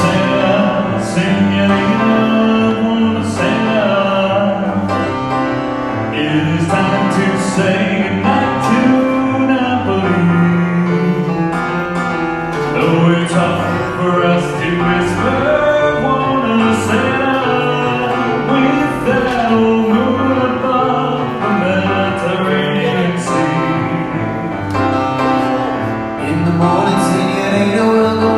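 Live singing with instrumental accompaniment in a classic Italian popular style, with cymbal-like percussion strokes keeping the beat.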